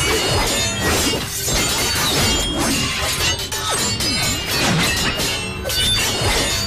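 Movie fight sound of Wing Chun butterfly swords clashing in rapid metal clangs and rings, over dramatic background music.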